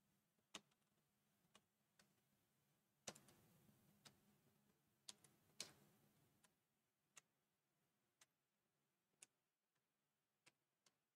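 Near silence with about a dozen faint, irregularly spaced clicks of computer keyboard keys as an equation is typed in.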